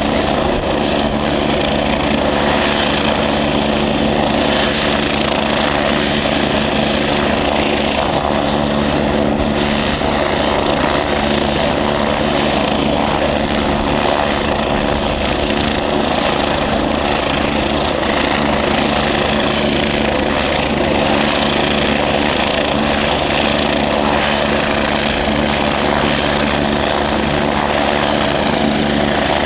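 Air ambulance helicopter running steadily, its turbine and rotor making an even, unbroken noise with a steady hum underneath.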